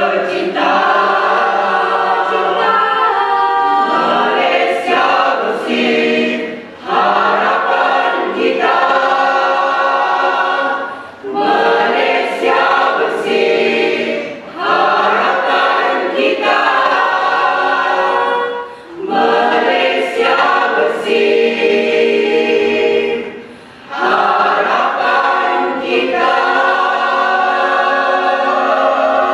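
Mixed choir of women's and men's voices singing unaccompanied in harmony: long held chords in phrases, with short breaks between phrases every few seconds.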